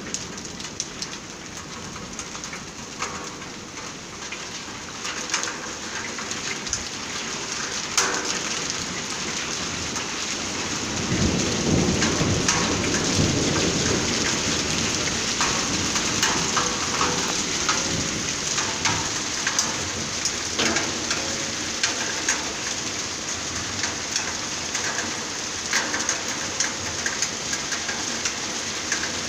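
Hail and rain pelting a flagstone patio and hedge: a dense hiss full of small hits that grows louder over the first dozen seconds. A low rumble comes in about eleven seconds in.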